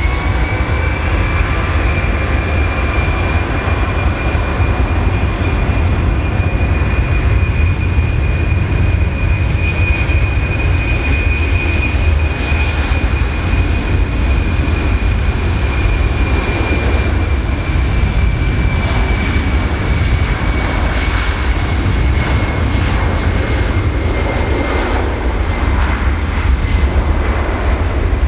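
Four Pratt & Whitney F117 turbofan engines of a Boeing C-17A Globemaster III at takeoff thrust during the takeoff roll: a loud, steady high whine over a deep rumble. The whine rises right at the start as the engines spool up, then holds and falls slightly near the end.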